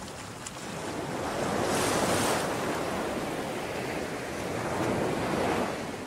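Ocean waves breaking on a beach: a wave crashes with a bright hiss about two seconds in, and a second wave swells and washes in near the end before falling away.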